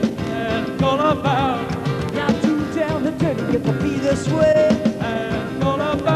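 Live band playing an instrumental passage at full volume, with a lead line that bends up and down in pitch over a steady beat of bass and drums.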